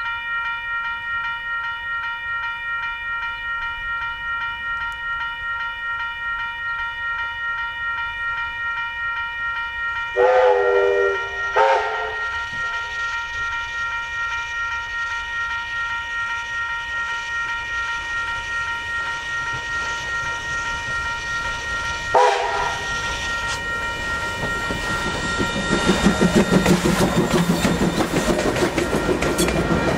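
Steam train under way behind NZR Ab-class locomotive Ab608, running with an even rhythmic beat. Its steam whistle sounds two short blasts about ten seconds in and one more short blast a little past the middle. The running gets louder near the end.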